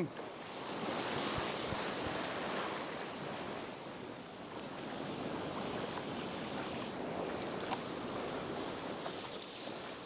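Ocean surf breaking and washing up the beach, a steady rush that swells about a second in and then settles.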